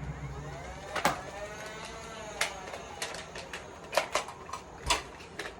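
A plastic Nerf blaster being handled: a handful of sharp clicks and knocks spread over a few seconds, with a faint whirring in the first half.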